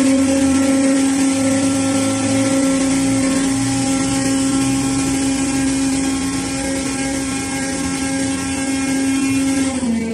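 Hydraulic scrap-metal baler's power unit running under load: a loud, steady whine with overtones, whose pitch drops near the end.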